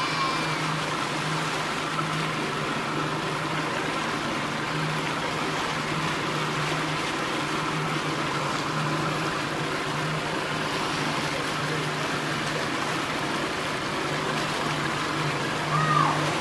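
Motorboat engine running steadily at speed, with water rushing past the hull and through the wake.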